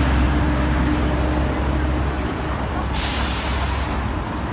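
City bus engine rumbling as it pulls away from the stop, fading over the first two seconds, then a sudden sharp hiss of air about three seconds in that lasts about a second.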